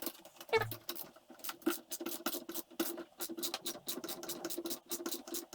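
Rapid clicking, about eight clicks a second, from a hand tool tightening a nut or bolt on the steel frame of a home-built wheel truing stand, over a low steady hum.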